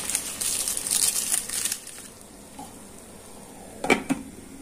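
A plastic bag of bait crinkling as it is pushed down into a pot of boiling water, then a pot lid knocking down onto the pot twice in quick succession near the end.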